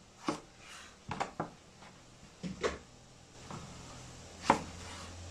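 Chef's knife slicing through an eggplant and knocking on a plastic cutting board: about six short, irregular chops, the loudest near the end.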